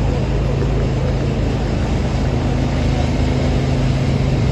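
A vehicle's engine running with a steady low hum, and a second, higher steady tone joining a little past halfway.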